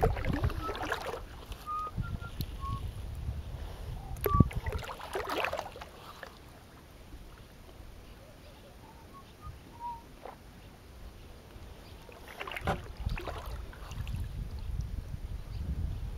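Kayak paddle strokes dipping and splashing in the water, with wind rumbling on the microphone. The paddling pauses for about six seconds in the middle, then picks up again.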